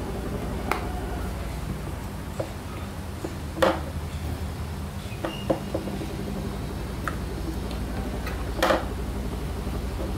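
A hard plastic case being opened and a lens adapter with its plastic caps handled: scattered small clicks and knocks, two louder ones about a third of the way in and near the end, over a steady low hum.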